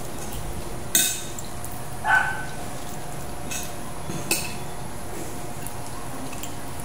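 Tableware tapping while eating: four short clicks and clinks of a spoon against bowls and plates, spread over a few seconds. One of them rings briefly.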